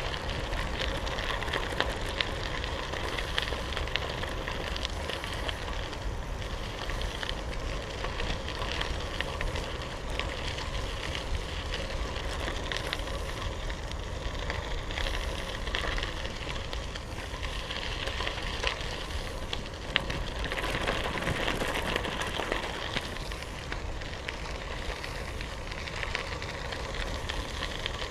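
Bicycle tyres rolling over a gravel trail: a steady crunching and crackling of small stones, with a low rumble beneath.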